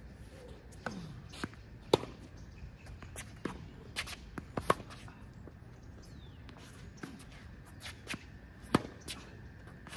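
Tennis rally on a hard court: a string of sharp pops as rackets strike the ball and the ball bounces, irregularly spaced, with the loudest hits about two seconds in, near five seconds and near nine seconds.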